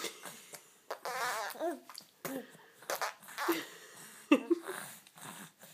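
A baby about four months old blowing raspberries: several buzzing lip trills mixed with short squealing coos.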